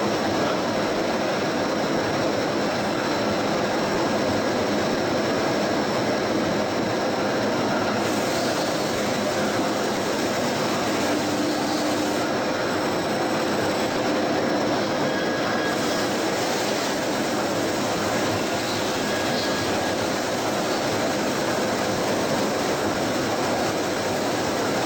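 CKA6150 CNC lathe running in a workshop: a steady, even machine noise with a few faint steady tones, unchanging in level.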